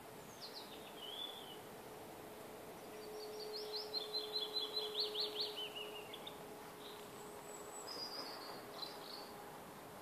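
Songbirds singing: a short phrase about half a second in, then a longer song of quick repeated notes from about three seconds that ends in a falling run near six and a half seconds, and a few thin high notes near the end. A faint steady hum lies underneath.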